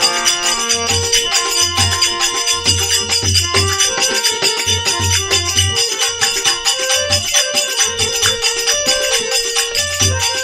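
Instrumental interlude of a Rajasthani bhajan: a melody instrument plays held notes over a repeating low drum beat, with steady jingling percussion on top.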